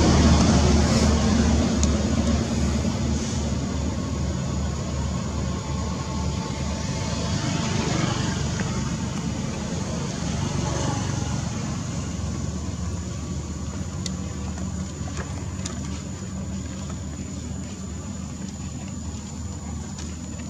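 A motor vehicle's engine running with a steady low hum that slowly fades over the whole stretch.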